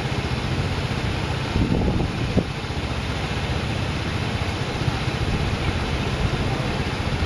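Wind buffeting the microphone outdoors: a steady, fluttering low rumble with a hiss above it, with a couple of brief louder sounds a little after the two-second mark.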